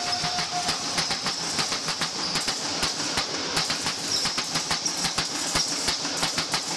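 Basketball players' footsteps and a dribbled ball knocking on a sports-hall floor, in a fast, irregular patter.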